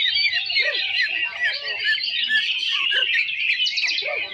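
Many caged cucak ijo (greater green leafbirds) singing at once on a songbird contest ground: a dense, unbroken chorus of overlapping high chirps and whistles, with some lower arched notes mixed in.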